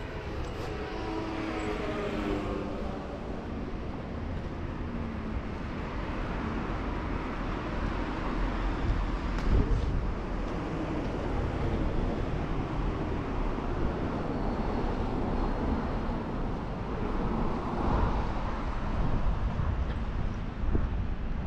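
Road traffic: a passing vehicle whose engine tone falls in pitch over the first few seconds, then a steady rumble of traffic.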